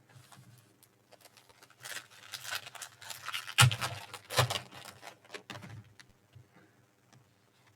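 Trading cards and their plastic packaging being handled: a few seconds of crinkling and sharp clicks, loudest in the middle.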